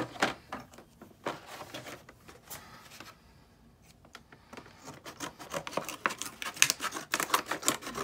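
Scissors cutting into the plastic packaging of a typewriter ribbon cartridge: a few sharp snips in the first second or so. After a pause, the plastic crackles in quick, dense clicks for the last three seconds as it is handled and pulled open.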